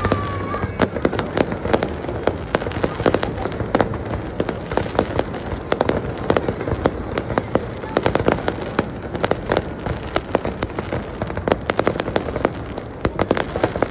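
Fireworks display: a dense, continuous crackle of many sharp bangs and pops, thickening again near the end.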